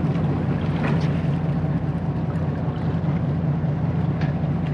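Fishing boat's engine running steadily, a constant low hum.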